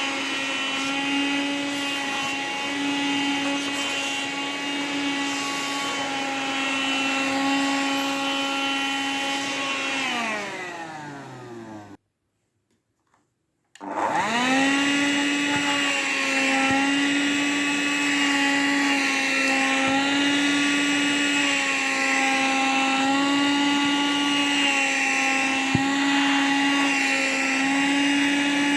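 Vacuum cleaner sucking on a duvet in a crinkly high-density anti-mite cover that it grips strongly, giving a steady motor whine under a rustling suction hiss. About ten seconds in the motor winds down and stops, then about two seconds later it starts again and runs straight back up to speed.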